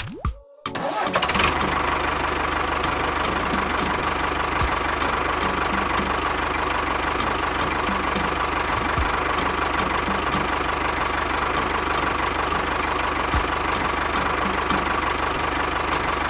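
A small motor starts about a second in and runs steadily, with an even low pulsing.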